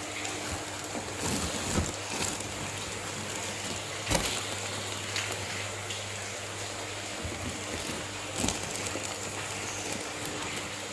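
Steady low hum over a hiss of running water, typical of aquarium air pumps and filters, with a few short sharp knocks.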